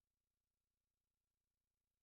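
Near silence: the soundtrack is essentially empty, with no audible sound.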